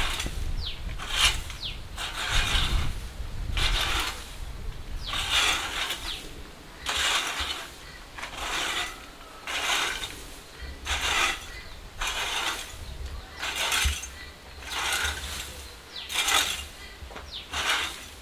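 Metal fan-rake tines scraping across dry manure and straw on a shed floor, in a steady rhythm of raking strokes about one a second.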